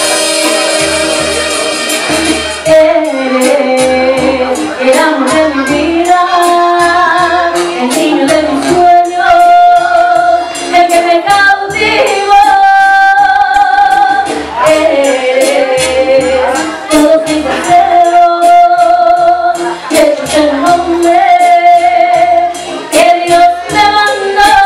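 A woman sings live into a handheld microphone over loud amplified backing music, holding long notes above a steady bass beat.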